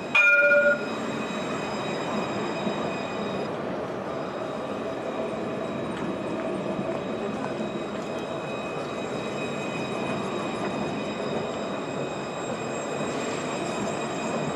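An Alstom Citadis tram sounds its warning gong once, loud and brief, then rolls past close by with a steady rumble and a faint high steady whine.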